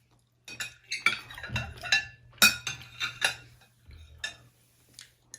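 Spoons clinking and scraping against bowls of goto (rice porridge) while eating: an irregular run of about a dozen sharp clinks, some with a brief ring.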